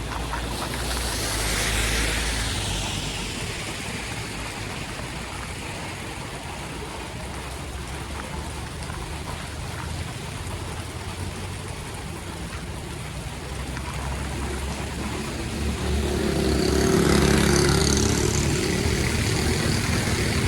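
Steady rain and water noise on a flooded street, with a vehicle passing through the floodwater about two seconds in and a second, louder one near the end.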